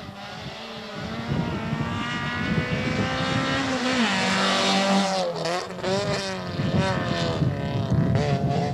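Rally car engine revving hard as the car approaches and passes, growing louder; its pitch climbs, then drops and climbs again at several gear changes.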